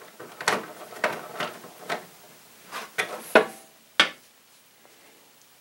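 Sharp clicks and knocks of a pinball lamp driver circuit board being handled and fitted into the machine's metal back box, about eight in all, stopping about four seconds in.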